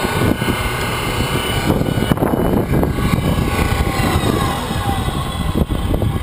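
Homemade electric outboard motor built from an angle grinder, running on 120-volt AC, whining steadily over loud low rushing noise. About four seconds in, its pitch glides down as it is slowed on the variable speed control.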